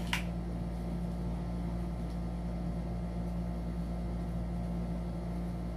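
Steady low hum of a window air conditioner running, with one short click near the start as the helmet's strap buckle is handled.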